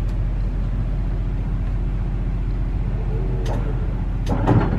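Boat's generator running with a steady low hum. Near the end a rapid mechanical clattering starts, the hotwired anchor windlass beginning to haul in chain.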